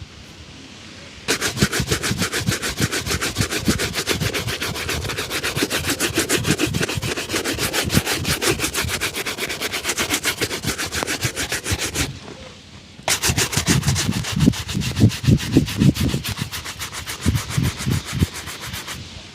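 Shoe being buffed with fast back-and-forth strokes, several a second, in two long spells with a brief pause between them.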